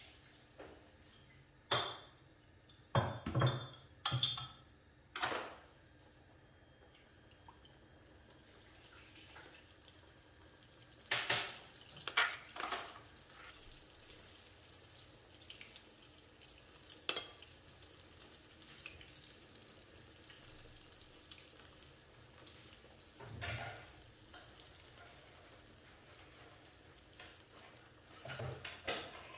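Oil sizzling and crackling steadily in a frying pan as potato maakouda patties fry, with scattered knocks and clinks of bowls and utensils, the loudest a cluster about three to four seconds in.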